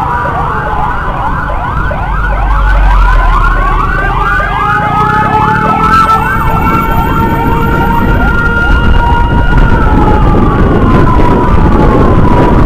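Emergency sirens of an ambulance escort: a fast yelp of rapid up-and-down sweeps, about three a second, layered over a slower wailing tone. The yelp dies away about seven seconds in, leaving the wail, which falls in pitch near the end, over the rumble of the moving vehicles and wind.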